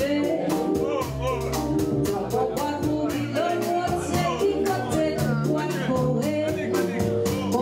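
Live band music: a woman singing over piano, upright double bass and drums keeping a steady beat.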